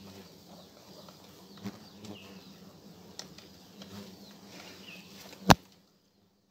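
Faint rustling of a plastic bag being handled, with a few light ticks. A single sharp click about five and a half seconds in is the loudest sound, after which the sound cuts out completely.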